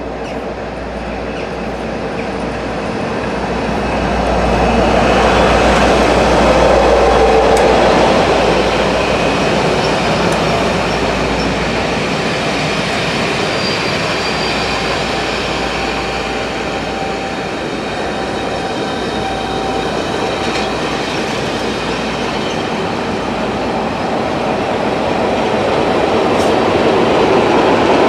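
Diesel-hauled passenger train of maroon coaches running through a station: locomotive engine and wheels rolling on the rails, loudest as the train draws past about six seconds in and rising again near the end. A few faint wheel squeals sound in the middle.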